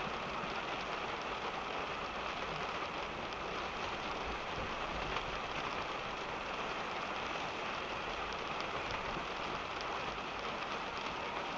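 Rain falling on a car, heard from inside the cabin: a steady, dense patter of many small drop ticks, with a low rumble beneath it.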